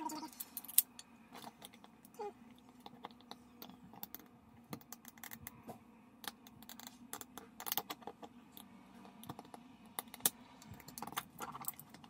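Scattered light clicks and taps of a screwdriver working the screws out of a pool cleaner's plastic swivel-unit housing and of the plastic parts being handled, with one sharper click just under a second in.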